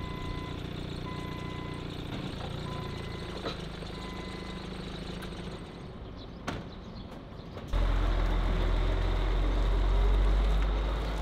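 Forklift engine running with its reversing alarm beeping about once a second for the first few seconds. About two-thirds of the way through, a louder low rumble from a cargo truck's diesel engine takes over as the truck pulls away.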